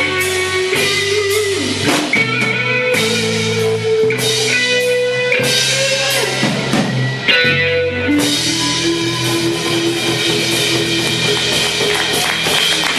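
Live rock band near the end of a song: electric guitar and held chords over a drum kit. From about eight seconds in, a steady cymbal wash carries the last bars.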